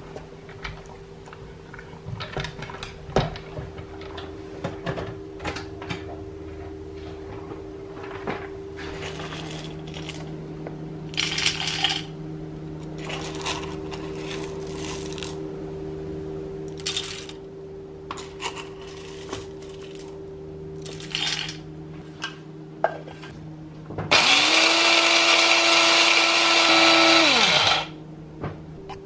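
Scattered small clicks and crunches of a dog eating kibble from a slow-feeder bowl, then coffee beans rattling as they are scooped into the grinder. Near the end an electric blade coffee grinder runs for about four seconds: its motor whine rises as it spins up, holds steady while grinding the beans, and falls away when it stops.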